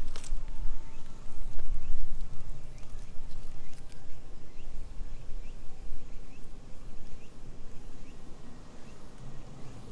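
Cats purring close to the microphone as they are stroked, a steady low rumble. There is a sharp click right at the start, and faint short chirps repeat above the rumble about every two-thirds of a second.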